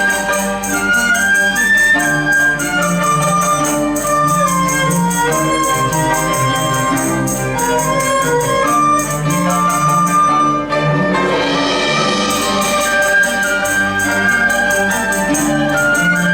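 Chinese chamber sextet of erhu, dizi, pipa, yangqin, zhongruan and cello playing: held melody lines over rapid, even repeated plucked or struck notes. The quick notes stop for about a second and a half past the middle, then come back.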